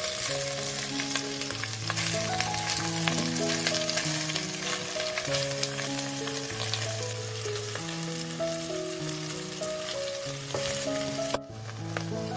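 Prawn heads and shells sizzling and frying in hot olive oil in a stainless steel pot while a wooden spoon stirs them, over background music. The sizzle cuts off sharply near the end.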